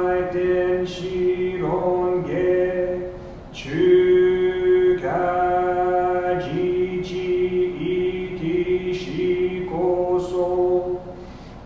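A man chanting a Buddhist sutra solo, in long held notes, each phrase opening with a short upward slide in pitch and breaking twice for a breath.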